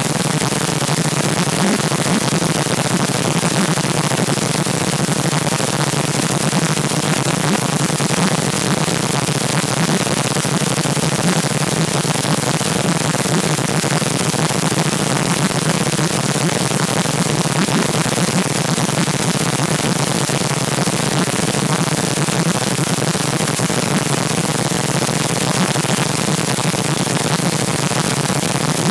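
Loud, steady static-like hiss that does not change.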